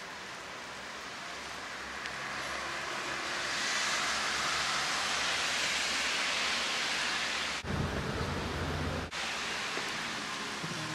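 A steady rushing hiss like rain or falling water, swelling louder about three to four seconds in, with a short deeper rumbling stretch of about a second and a half starting near eight seconds.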